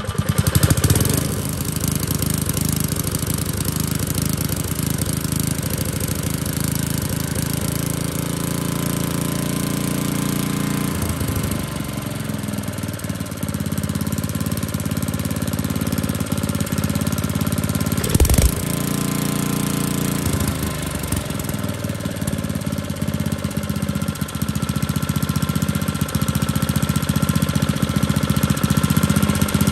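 Old Tecumseh four-stroke engine running steadily while its carburettor is adjusted, its speed shifting a couple of times. A single sharp knock comes about 18 seconds in.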